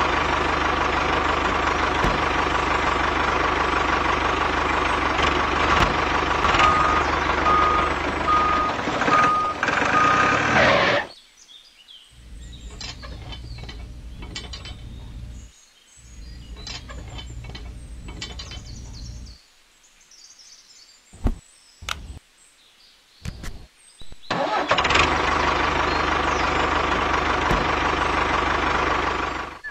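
Tractor engine running steadily, cutting off about eleven seconds in. In the quieter stretch that follows come a low hum and small clicks of toy parts being handled. The engine sound starts again near the end.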